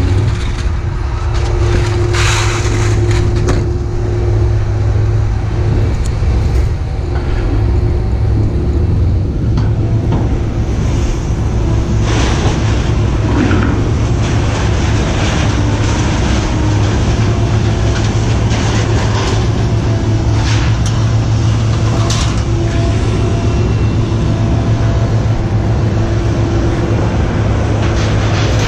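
A large engine running steadily with a deep, even rumble and a constant hum, with a few short clanks and rattles over it.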